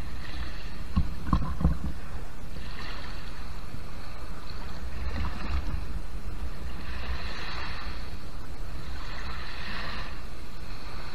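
Small waves washing up on a sandy beach, each wash swelling and fading every two to three seconds, over a steady low rumble.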